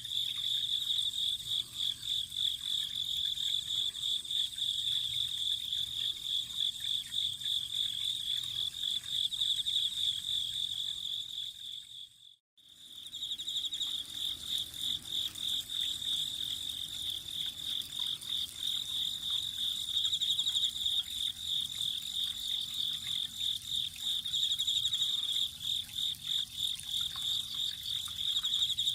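Autumn crickets trilling in a steady, high-pitched, finely pulsing chorus. The sound dips away briefly and comes back about twelve seconds in.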